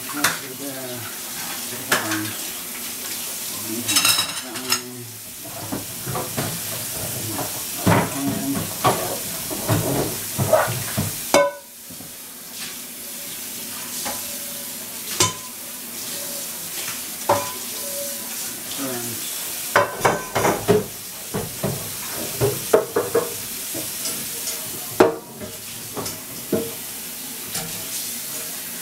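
Dishes, pots and cutlery clinking and clattering in a kitchen sink as they are washed by hand, over a steady hiss, with many short knocks throughout.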